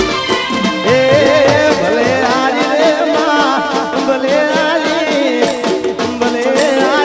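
Gujarati garba folk music: a wavering, ornamented melody over a steady percussion beat.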